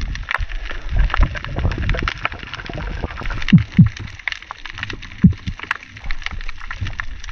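Water sloshing and gurgling with many small crackling clicks. A few loud low gurgles drop in pitch, the loudest pair about three and a half seconds in.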